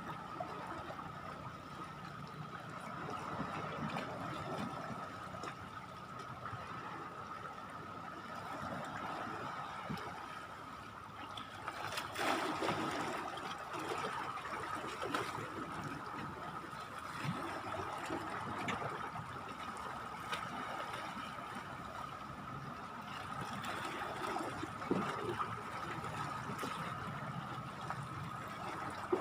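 Sea water lapping and trickling at the shore, with a steady high tone running underneath and a brief louder rush of noise about twelve seconds in.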